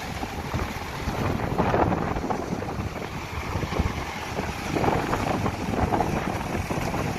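Strong wind buffeting the microphone in uneven gusts, with the sea washing behind it.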